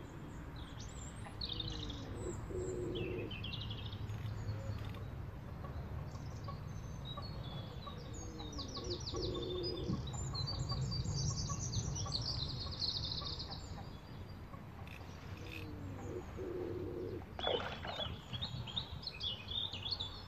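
Songbirds chirping and trilling, with a pigeon cooing three times in a low, falling-and-rising call. A steady low rumble runs underneath, and a short rush of noise comes near the end.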